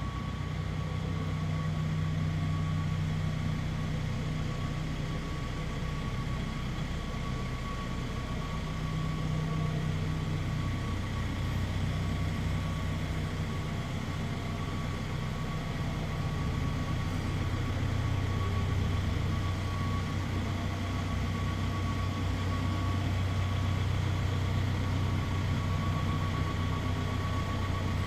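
Schäffer 9530T telescopic wheel loader's diesel engine idling steadily, a low even hum with a thin steady high-pitched whine over it.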